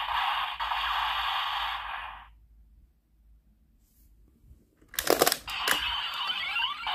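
Electronic sound effects from the Kamen Rider Revice Driver toy belt, played through its small speaker, cutting off about two seconds in. After a pause, a few sharp plastic clicks as the toy is worked, then the belt's sound effects start up again near the end.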